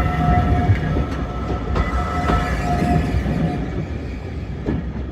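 Heritage railway train running slowly on the track: a low rumble with wheels squealing in steady on-off tones and a few sharp clicks over rail joints. The sound gradually dies away near the end.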